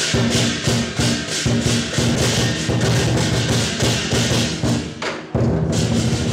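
Lion dance percussion: a Chinese drum beating a fast, steady rhythm with crashing cymbals and a ringing gong. About five seconds in there is a sudden break, and the beat picks up again.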